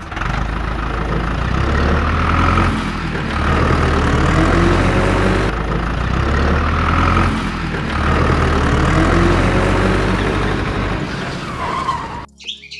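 A tractor engine running and revving in repeating swells, with a deep rumble. It cuts off suddenly near the end.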